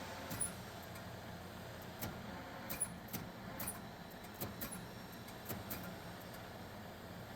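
Steady hum of the Niigata UMC-2 milling machine with a scattered series of light, irregular clicks and knocks as the cutter is backed away and the table repositioned for another pass.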